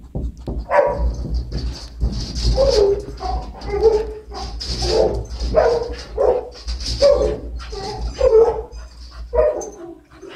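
Dogs barking repeatedly, about a dozen barks at roughly one a second.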